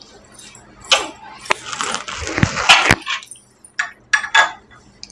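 A metal spoon clicking and scraping against small glass bowls, several sharp clinks, with eating noises in between.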